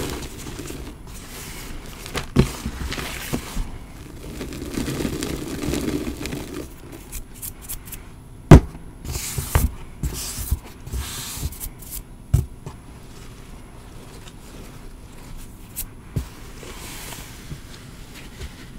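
Hands squeezing, crumbling and smoothing a tray of powdered gym chalk and cornstarch: soft muffled crunches and brushing swishes, with a few sharp taps, the loudest about eight and a half seconds in.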